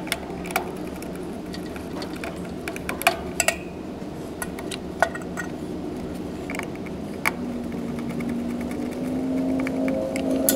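Small sharp clicks and taps of a screwdriver and wires working the terminal blocks of a steel electrical control panel, over a steady low background hum; faint held tones come in near the end.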